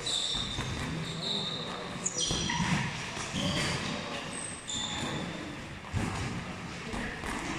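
Boxing sparring: gloved punches landing with dull thuds, the sharpest about two seconds in and near six seconds, and shoes squeaking in short high chirps on the ring canvas during the footwork.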